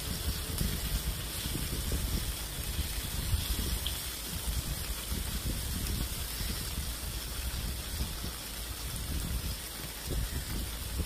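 Pork belly sizzling on a grill pan: a steady frying hiss.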